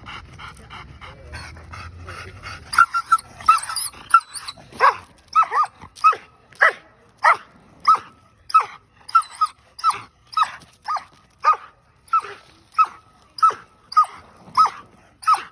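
A dog barking over and over in short, sharp barks, about one and a half a second, starting about three seconds in.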